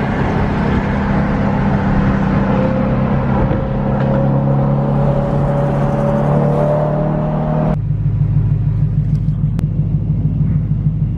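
BMW E92's engine running with a steady drone and a slowly rising whine over it. About three-quarters of the way through, the sound changes abruptly to a lower, pulsing rumble.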